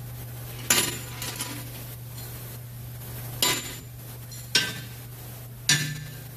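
Metal tools and engine parts clinking against each other as they are handled: four sharp clanks with brief ringing, spaced a second or more apart, over a steady low hum.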